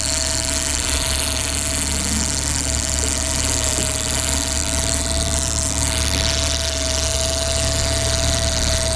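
Boat motors running steadily at trolling speed, the small outboard kicker and the electric bow-mount trolling motor: a low hum with a steady whine over it, under a hiss of wind and water.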